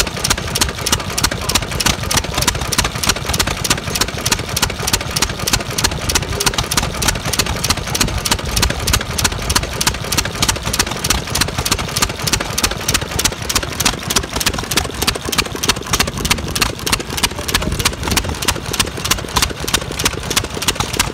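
Amanco Hired Man single-cylinder hit-and-miss stationary gas engine running, with a quick, even beat of several strokes a second that does not let up.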